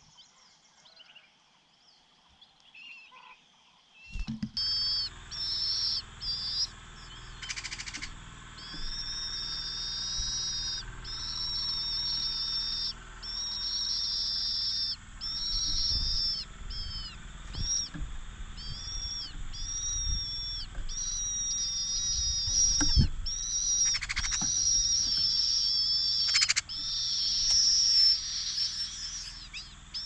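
Large hawk-cuckoo chick begging to be fed by its scimitar-babbler foster parent: a near-continuous run of high, thin, wavering calls, each about a second long with short breaks, starting about four seconds in. A few low thumps are mixed in.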